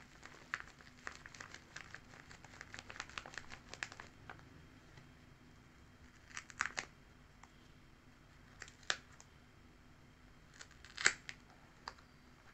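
Paper being handled: light crinkling and small clicks as fingers work a handmade paper sticker book, then three short, sharper crackles in the second half as its paper flap closures are pulled open, the last one the loudest.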